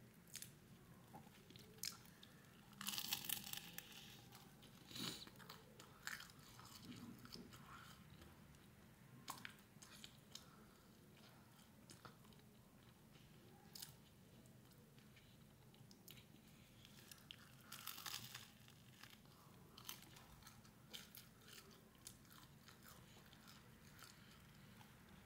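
A person chewing a crusty bread-roll salami sandwich: faint chewing and crunching, with louder crunchy bites about three seconds in and again around eighteen seconds.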